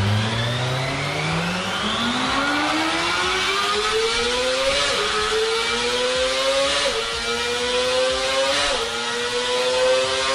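Kawasaki Ninja ZX-25R's 249 cc inline-four engine revving hard on a dyno run. The pitch climbs steadily, then drops briefly three times, about two seconds apart, and keeps rising as the bike is shifted up through the gears near its high rev range.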